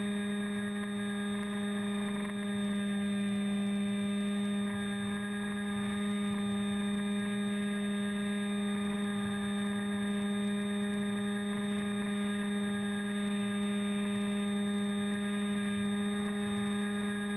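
Electric motor and propeller of a model aircraft carrying the camera, a steady hum held at one unchanging pitch.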